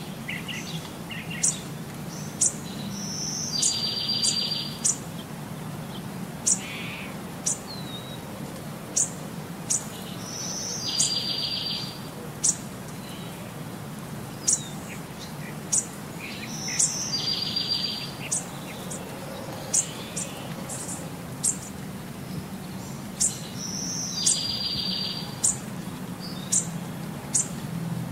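Chirping bird calls: short, sharp high chirps with a buzzy trill that repeats about every seven seconds, as a looped track over a steady low hum.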